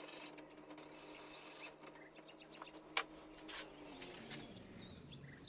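Hand sanding of crumbling particle-board drawer corners: faint rasping strokes of sandpaper on the board, with a sharp click about three seconds in. A faint low hum underneath stops about four seconds in.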